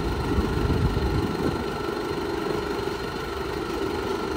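Off-road vehicle's engine running steadily near idle; its deepest rumble eases off about a second in.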